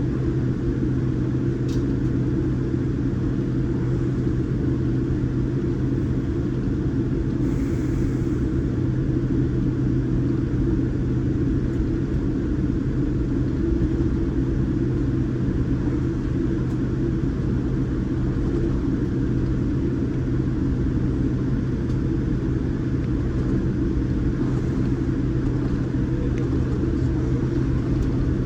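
Boeing 787 Dreamliner cabin noise: the jet engines and airflow make a steady rumble with a constant low hum, heard from inside the passenger cabin.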